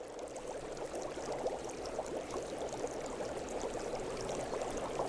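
Hot spring water boiling up through rocks, a steady, dense bubbling and splashing.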